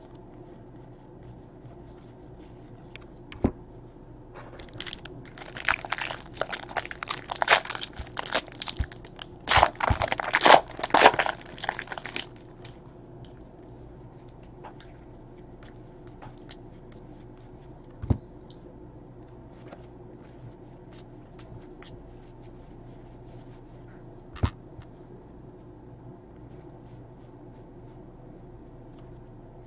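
A trading-card pack's wrapper crinkling and tearing for several seconds, starting about five seconds in. Afterwards only the soft handling of cards, with two light taps.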